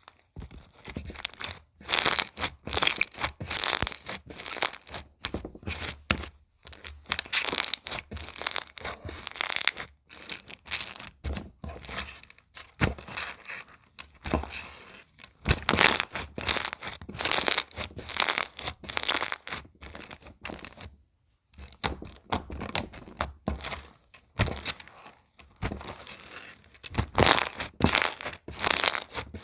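Slime being squished, stretched and pressed by hand: dense runs of small sharp clicks and crinkles in irregular bursts, with a short lull about two-thirds through.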